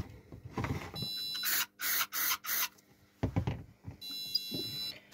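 Fire alarm control panel buzzer sounding twice, with the panel going into fault. Each buzz is a harsh high tone lasting about half a second to a second. Four short hissing bursts come between the two buzzes, and there are a couple of dull handling knocks.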